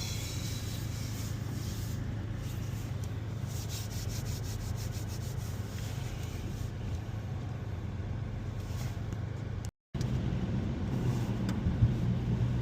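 Cabin noise of a 2021 Mazda 3 Turbo AWD driving on snow-covered roads: a steady low engine and road hum under a hiss of tyres. The sound cuts out completely for a moment about ten seconds in, then comes back slightly louder.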